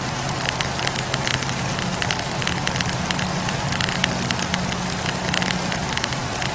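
Wood fire burning, crackling with frequent small, irregular pops over a steady low rumble.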